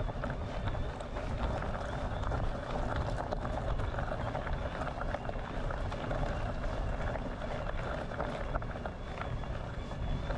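Wind buffeting the microphone while riding, a steady low rush with many small crackles like tyres on a rough track.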